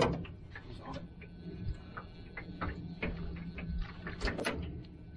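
Irregular light clicks and knocks, a few louder ones about 3 and 4.5 seconds in, over a steady low hum.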